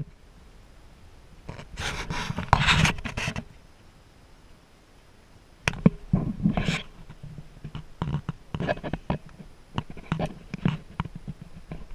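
Camera handling noise: a couple of seconds of rustling and scraping, a short lull, then a run of irregular sharp clicks and knocks as the person holding the camera moves about.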